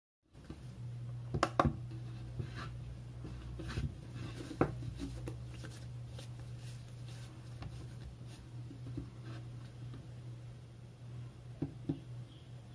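A few short, light knocks and taps of dough and a kitchen scale being handled on a worktop, over a steady low hum.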